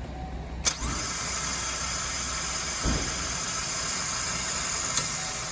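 A 2014 Chevrolet Malibu being started: a sharp click under a second in, then a steady mechanical running sound, with a low thump about three seconds in and another click near the end.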